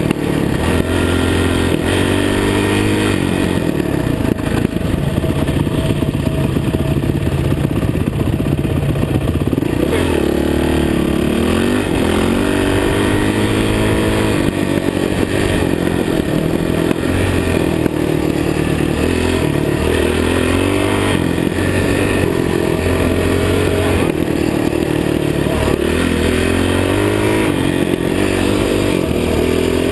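Dirt bike engine running under way, its pitch rising and falling again and again as the throttle opens and closes.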